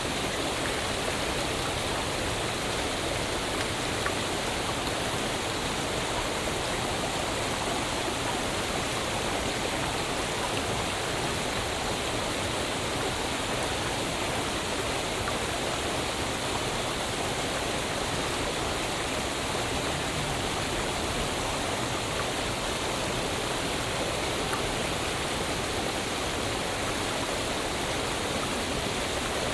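Waterfall: a steady, unbroken rush of falling water with no changes.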